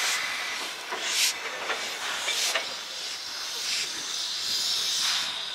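Class C10 steam locomotive hissing steam as it moves slowly, with louder surges of steam about every second and a quarter.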